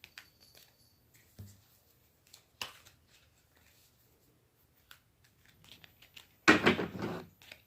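Tarot cards being handled and shuffled: a few soft taps and flicks, then a loud riffle of cards lasting about a second near the end.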